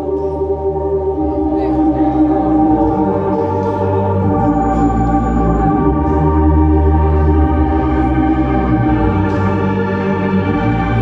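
Music played over the arena's loudspeakers: sustained keyboard chords over a deep bass line that shifts every few seconds.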